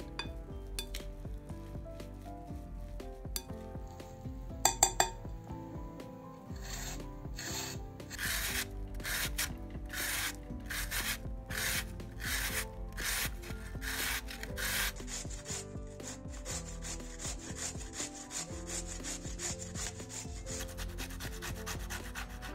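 Rasping strokes of food being grated on a metal box grater against a wooden board, slow and even at first, then quicker and rhythmic near the end. A few sharp knocks come about five seconds in.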